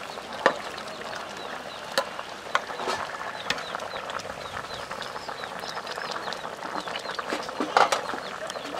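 Metal ladle stirring soup in an aluminium pot, clinking against the pot several times, with a cluster of clinks near the end. Birds chirp throughout.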